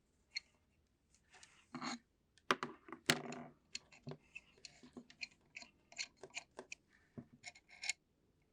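Small parts of a screen separator tool being handled on a bench: a string of sharp clicks and clatters, with a short scrape about three seconds in.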